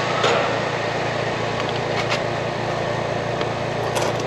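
Steady hum and drone of running air-conditioning equipment, with a couple of light clicks about two seconds in and near the end.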